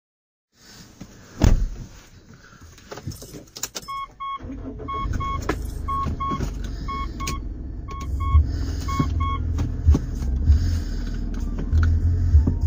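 Inside a car, a loud thump and a few clicks, then a dashboard warning chime beeping in pairs about once a second, six times. A few seconds in, the car's engine starts and settles into a low idle that carries on under the chime.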